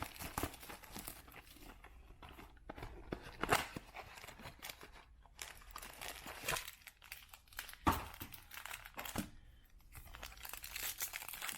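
Baseball card packaging being torn open and crinkled by hand: a plastic or foil pack wrapper rustling and ripping, with two sharp snaps, one a few seconds in and a louder one near the middle.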